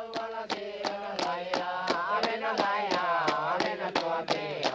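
Ceremonial chanting by a group of voices in unison, over a sharp percussive beat of about four strokes a second.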